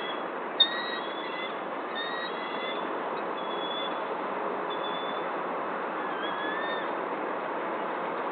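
Several short, thin bird whistles, a few rising slightly, over a steady hiss of background noise, with one sharp click a little after the start.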